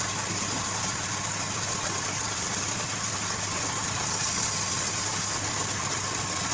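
Wood lathe running steadily, a constant motor hum under a high hiss.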